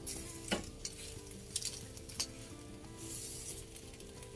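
Food sizzling as it roasts on a gas stove, with metal tongs clicking a few times against a foil-lined tray while tomatoes, onion, serrano chiles and tomatillos are turned.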